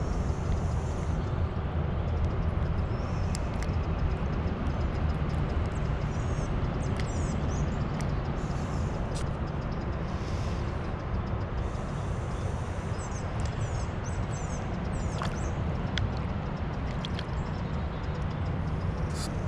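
Outdoor ambience: a steady low rumble with faint, high bird chirps now and then and a few light clicks.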